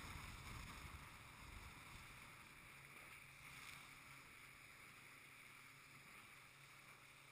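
Faint rush of water and wind around a motorboat that fades over the first couple of seconds as the boat slows. About three seconds in it gives way to a low steady hum from its Yamaha outboard motor idling.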